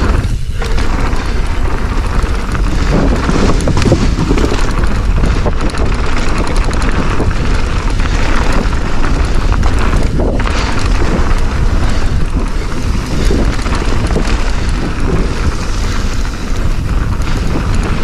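Wind rushing over the microphone and mountain-bike tyres rolling over a dirt trail at speed: a loud, steady rumbling roar.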